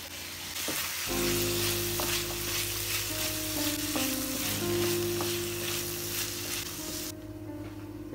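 Chopped onions and shallots sizzling in hot oil with ginger-garlic paste as they are stirred with a wooden spatula, with light scraping ticks; the sizzle cuts off suddenly near the end. Soft background music runs underneath.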